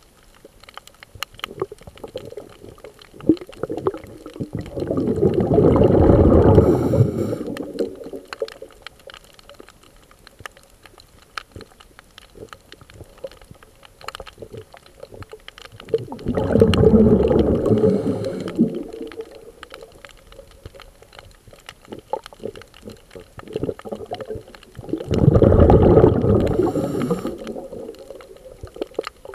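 Underwater scuba breathing: three long gurgling bursts of exhaled bubbles from the diver's regulator, about ten seconds apart. Each ends with a short hiss, and faint crackling clicks run in between.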